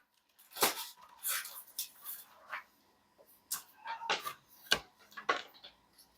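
Cardboard pieces and packaging being handled: a series of short rustles, light knocks and clicks, irregularly spaced.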